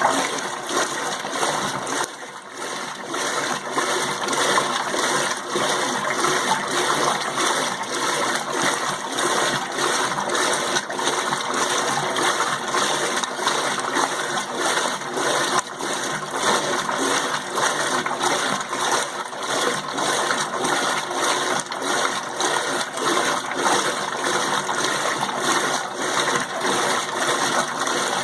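Electrolux Turbo Limpeza 8 kg top-loading washing machine churning water in a rinse cycle with rugs in the drum at an extra-low water level, a continuous sloshing and splashing with a fast regular pulse.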